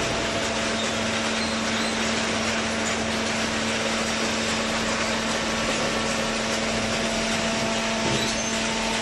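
Hydraulic vertical cardboard baler running: a steady hum from its motor and hydraulic pump over a broad, even machine noise.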